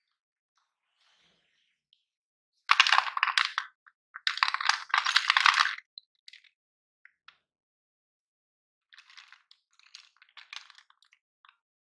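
Sticks of coloured chalk clattering and crunching: two loud runs of dense sharp clicks, then fainter scattered crackling near the end.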